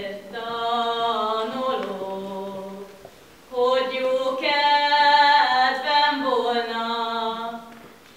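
A small group of female voices singing a Hungarian folk song from Bihar a cappella, in two long phrases with a short breath about three seconds in.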